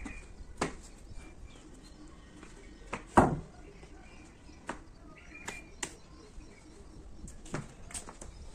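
Birds chirping faintly now and then, with scattered knocks and sandal steps on concrete, the loudest a single thump about three seconds in.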